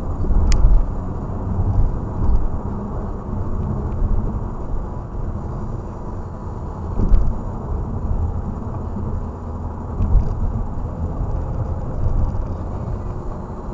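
A car driving at about 80–90 km/h, heard from inside the cabin: a steady low rumble of tyres on asphalt and the engine. There are a couple of louder low bumps partway through and a brief click about half a second in.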